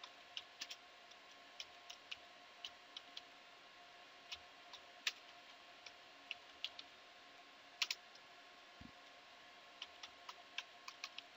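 Computer keyboard keys clicking at an uneven typing pace, single taps and quick pairs, with a louder double click about eight seconds in. A faint steady hum runs underneath.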